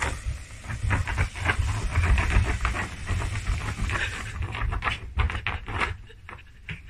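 Mame-shiba (small Shiba Inu) puppy digging and scrabbling at a fluffy mat on a crate floor: rapid scratching of paws with many dull thumps, easing off near the end.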